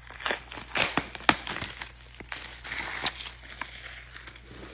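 Trading card box packaging being torn open and handled: irregular crinkling, crackling and crumpling, with a string of sharp clicks.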